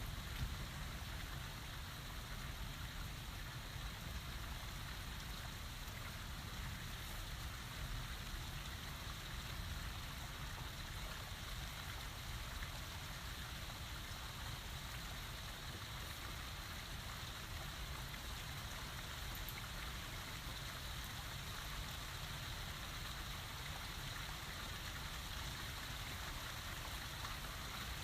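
Steady rain falling, an even continuous hiss with no thunder.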